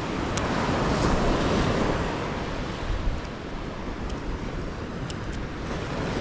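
Surf breaking and washing up the beach, swelling about a second in, with wind on the microphone and a few faint ticks.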